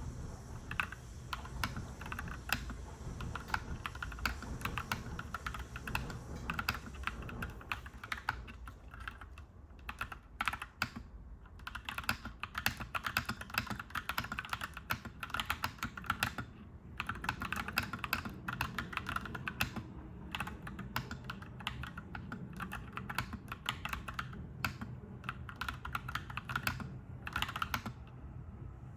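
Typing on a clacky mechanical keyboard: fast, continuous runs of key clacks with brief pauses, over a steady low rumble.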